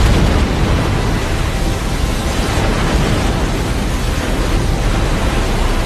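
An Airbus A320 airliner ditching on a river: a loud crash of water as the fuselage hits, then a continuous heavy rushing of spray and water as it skims along the surface.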